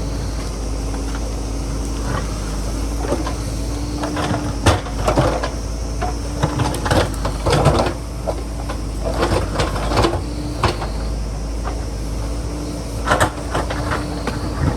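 JCB backhoe loader's diesel engine running steadily under load, with repeated clanks and knocks from the working arm and bucket.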